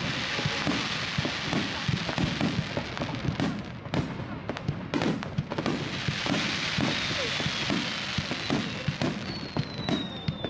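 Fireworks display: aerial shells bursting in rapid succession, the bangs echoing strongly, over a dense crackling hiss. Near the end a whistle glides slightly down in pitch.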